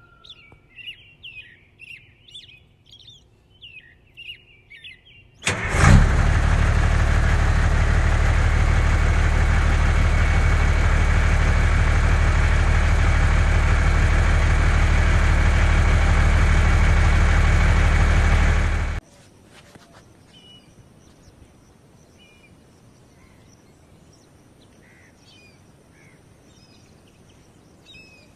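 Birds chirping. About five seconds in, a vehicle engine starts with a sharp burst and runs steadily and loudly for about thirteen seconds, then cuts off abruptly. Faint chirps follow.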